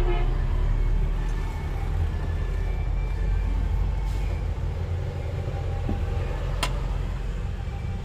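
A steady low engine-like rumble runs through, with one sharp click about six and a half seconds in.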